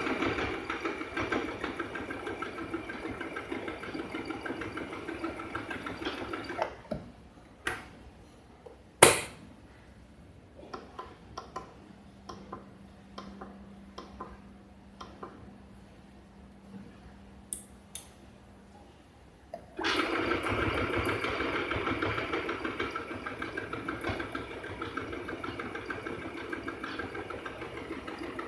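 FHSM-702 sewing machine running steadily while stitching, stopping about six and a half seconds in. Scattered clicks and small knocks follow for a dozen seconds. The machine runs again from about twenty seconds in.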